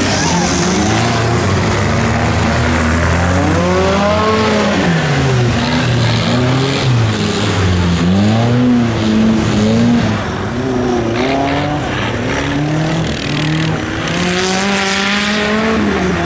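Off-road 4x4 trucks' engines revving hard through deep mud, several at once. Their pitch rises and falls again and again as the throttle is worked, over the hiss of spinning tyres and spraying mud.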